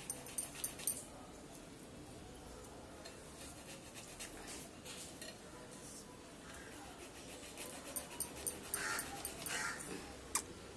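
Trevally (parai meen) being cleaned on an aruvamanai, a fixed curved blade on a wooden board. Quick scraping and cutting strokes sound against the stiff fish's scales and bones, in one short run at the start and another about eight seconds in.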